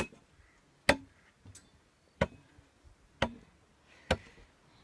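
Sharp chopping blows struck about once a second, each a single crisp hit with a short ring after it.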